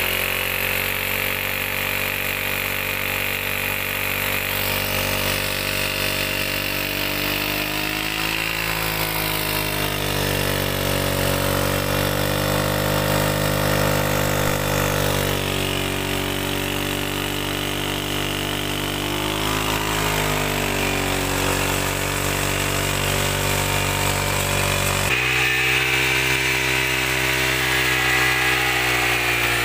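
Honda CG 125 single-cylinder four-stroke engine running in second gear, its rear tyre spinning a pulley that drives a centrifugal tubewell pump, with water gushing from the delivery pipe into a tank. The engine's pitch sags and recovers twice under the pump's load.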